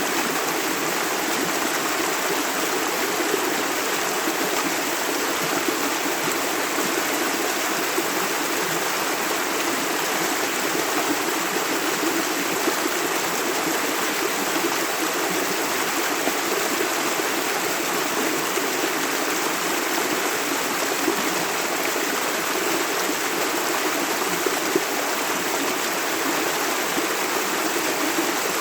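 Shallow river water running over stones: a steady, continuous rushing with fine bubbling and splashing detail.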